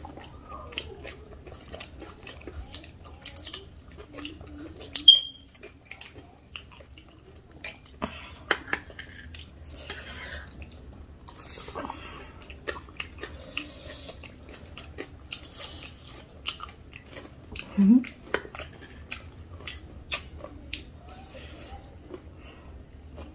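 Close-up chewing and crunching of spicy chatpate and onion pakoda, with scattered light clicks of a spoon against a dish. A brief high squeak comes about five seconds in, and a short low hum near the end.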